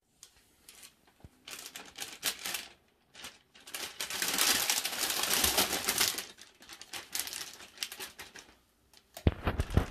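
Thin clear plastic bag crinkling and rustling in several bursts as a hand rubs a cat lying inside it and the cat shifts about, with a quick run of sharp knocks near the end.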